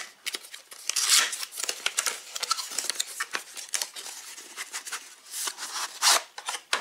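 Cardboard box being opened and the trap slid out of it: irregular scraping, rustling and crackling of cardboard with small clicks, louder about a second in and again near the end.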